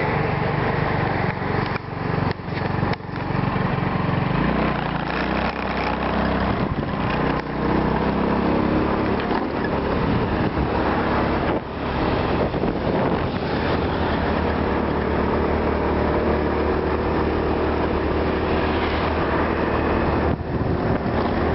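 A motor vehicle engine running steadily with road noise, rising in pitch about four seconds in as it picks up speed.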